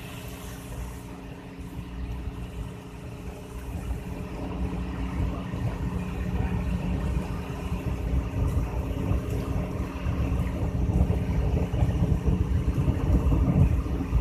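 Wooden fishing boat's inboard engine running steadily under way, a hum with several fixed tones. Beneath it a low rumble grows gradually louder.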